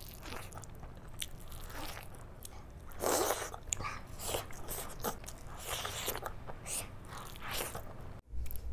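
Close-miked eating by hand: a mouth biting and chewing big mouthfuls of rice with curry, in irregular bites with the loudest about three seconds in. The sound drops out briefly near the end.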